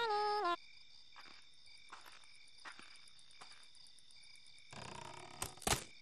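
Frog croaking sound effect: a long, pitched croak ends about half a second in, then faint frog and cricket night sounds. A short rustle with a couple of sharp crackles comes near the end.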